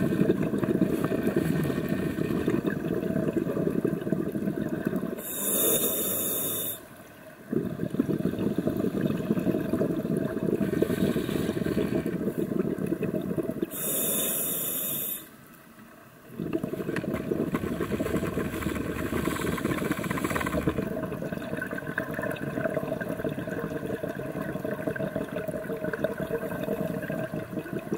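Scuba diver breathing through a regulator, heard underwater: long stretches of bubbling exhaled air, broken twice by a short hiss of inhalation through the regulator.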